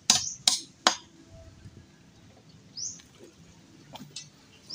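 Hammer blows: three quick, sharp strikes in the first second, keeping the steady pace of the hammering just before. After that it goes quiet and a bird chirps twice, once about three seconds in and once at the very end.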